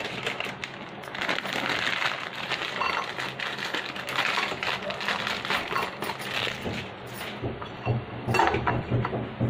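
Plastic biscuit packet crinkling as it is torn and emptied, with round biscuits dropping and clinking into a stainless-steel bowl.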